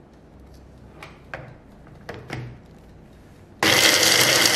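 A few plastic knocks as the motor-head lid of an electric mini chopper is fitted onto its bowl, then, about three and a half seconds in, the chopper's motor starts with a loud, steady whir as its blade chops roasted peanuts with red chillies and garlic.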